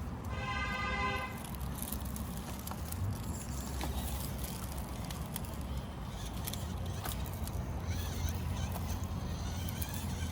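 A 1/24-scale RC rock crawler's tyres and drivetrain ticking and clicking as it crawls over rough ground, over a steady low rumble. A short pitched call sounds about half a second in.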